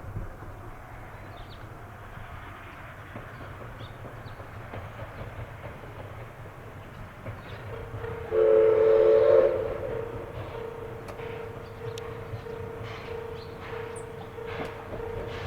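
Steam locomotive whistle sounding one loud chord for about a second, just past the middle, over the steady low rumble of the running train. A steady single tone runs on after the whistle, with occasional clicks.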